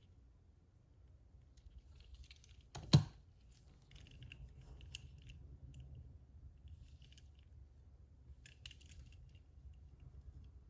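Small clicks and rustles of die-cast toy trucks being handled, with one sharp knock about three seconds in, like a model being set down on a hard surface.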